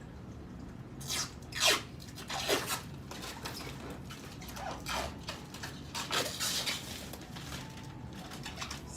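Protective plastic film being peeled off a sneeze guard panel: a series of rasping, tearing pulls with short gaps between them, the loudest about a second and a half in.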